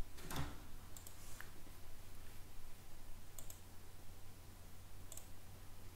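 A few faint, sharp computer mouse clicks, spread out, over a low steady hum.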